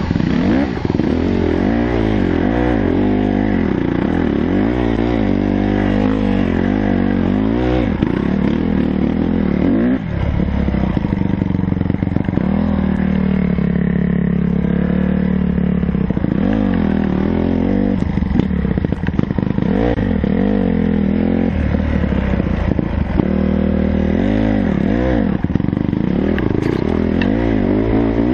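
Honda CRF150R dirt bike's four-stroke single-cylinder engine revving up and down again and again as it climbs a steep grassy hill under load, the revs held steadier for a few seconds midway.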